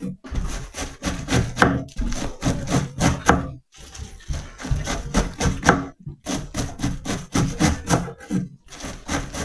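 A large kitchen knife shredding a head of cabbage against a wooden cutting board: quick runs of slicing strokes, each ending in a knock on the board, with short pauses between runs.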